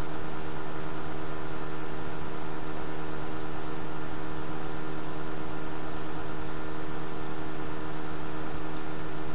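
Steady hiss with a constant low hum, unchanging.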